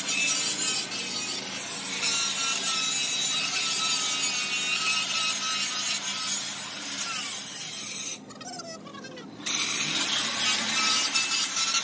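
Steady scraping and rasping of tools working the metal of a truck axle, dropping away briefly about eight seconds in before resuming.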